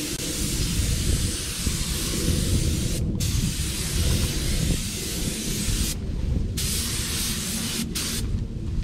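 Paint spray gun hissing as it sprays the bumper in long passes, with short breaks where the trigger is let off and a stop near the end. A low rumble runs underneath.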